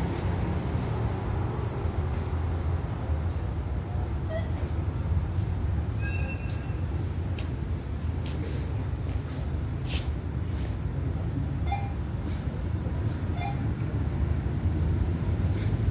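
Crickets chirring in a steady high tone over a low, steady rumble from the approaching Hitachi diesel-electric locomotive 4514, still some way off.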